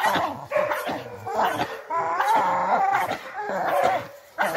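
Dogue Brasileiro dogs, an adult female and two young pups, barking and whining in a run of pitched, wavering calls as they bite and tug at a helper's bite suit during protection training. The calls break off briefly about four seconds in.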